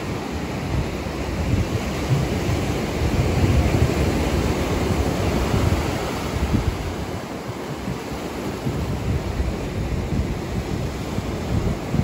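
Steady rushing noise of wind and ocean surf, with a gusty low rumble. It swells a few seconds in and eases off after the middle.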